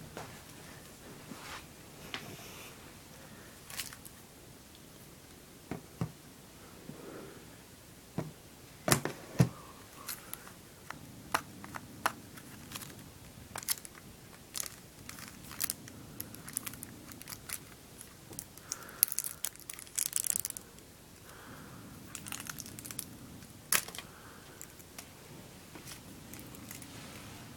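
Hands handling a cardboard box and a CD in a plastic sleeve: scattered clicks and taps with crinkling of the plastic packaging. Two sharp clicks stand out about nine seconds in, and a denser stretch of crinkling comes about twenty seconds in.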